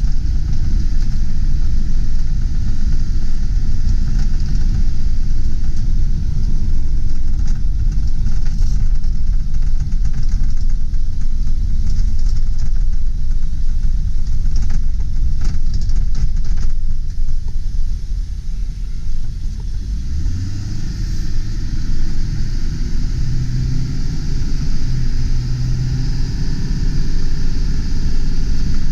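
Ford E450 Super Duty's 7.3-litre Power Stroke turbo-diesel V8 running, a heavy low rumble throughout. About two-thirds of the way through its note rises and then holds a steady hum.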